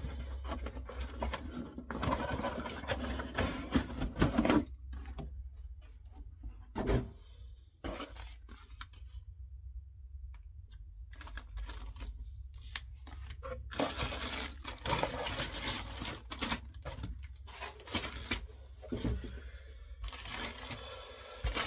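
Plastic model kit being unpacked by hand: irregular rustling and tearing of plastic bags and packaging, with scattered light clicks and clatters of plastic parts, over a steady low hum.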